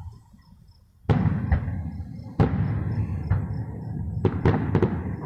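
Aerial firework shells bursting. After a quiet moment there is a sharp boom about a second in and another in the middle, then a quick run of cracks near the end, each with a rumble rolling on after it.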